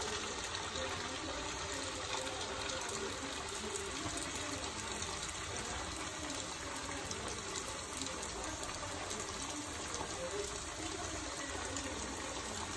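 Hot oil sizzling and bubbling steadily around a thick rice-flour orappu adai deep-frying in a kadai, a constant hiss full of small crackles.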